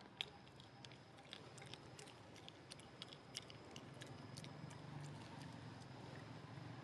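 Faint, irregular small clicks and crunches of a monkey chewing food, the sharpest about the first second.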